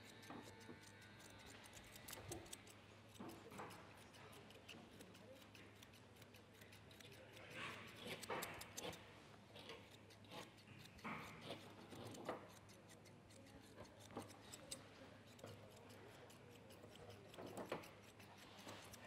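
Faint, quick snipping of grooming scissors cutting a Shih Tzu's coat, many small clicks in a row.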